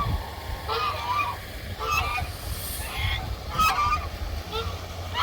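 Geese honking, one call after another about a second apart, over a low steady rumble.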